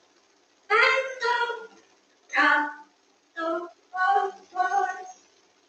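Talking parrot mimicking human speech: a string of short, high-pitched word-like utterances with brief pauses between them.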